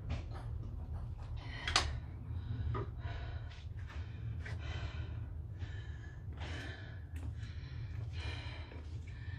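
A woman breathing hard and fast from six-count burpees, a gasping breath about once a second, the sharpest just under two seconds in, over a steady low hum.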